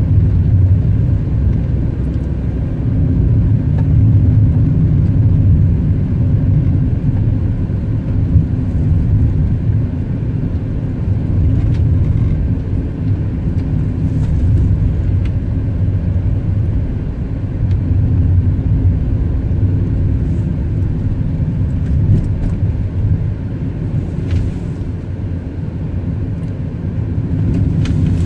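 A car driving along: a steady low rumble of engine and tyres on the road, swelling and easing a little.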